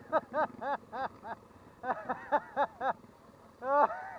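A man laughing in three runs of short, quick "ha" notes, each note rising and falling in pitch, about four a second.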